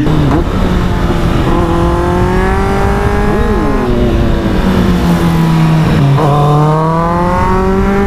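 Kawasaki Z800 inline-four motorcycle engine heard on board while riding, with wind rush. The engine note climbs under throttle and blips briefly about three and a half seconds in. It then falls off as the bike slows and climbs again from about six seconds in.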